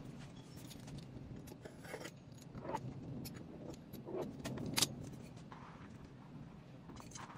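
Light handling sounds from a metal baking tray being held and shifted on thin sheets of baklava dough over a wooden board: a few soft scrapes and small clicks and knocks, the sharpest about five seconds in, over a low steady hum.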